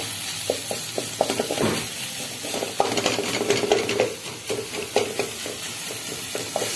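Wooden spatula scraping and stirring chopped onion, tomato and green chillies around a hammered aluminium kadai, in irregular strokes over a steady frying sizzle.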